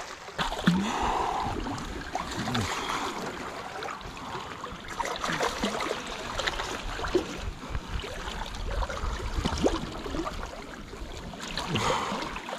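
Sea water sloshing and splashing among shoreline rocks as a hooked sea bass is drawn in close, with scattered knocks and rustles close to the microphone.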